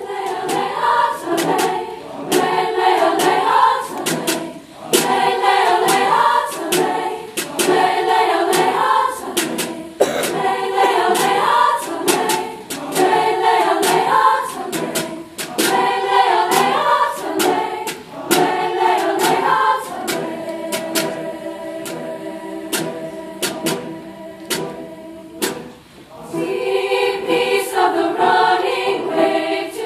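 A large high-school chorus sings in parts with piano accompaniment. About twenty seconds in, the voices settle into softer held chords, then swell again near the end.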